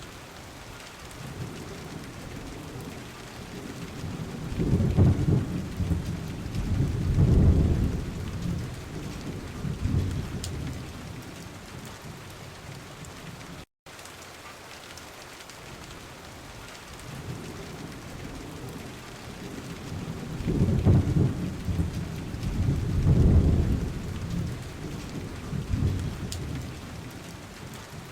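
Recorded rain falling steadily with thunder: two long low rumbles swell and fade, one in the first half and one in the second. A split-second dropout about halfway.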